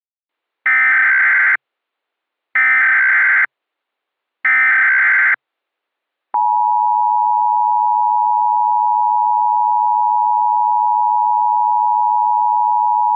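Emergency Alert System tones: three one-second bursts of buzzing SAME header data, about a second apart, then the steady two-tone EAS attention signal, which starts about six seconds in and holds.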